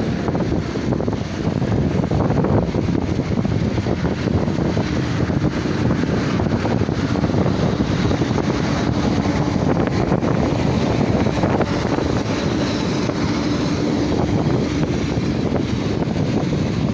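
Steady wind rushing over the microphone of a phone mounted on a road bike in motion, mixed with road noise from the ride. A faint low hum runs through the middle.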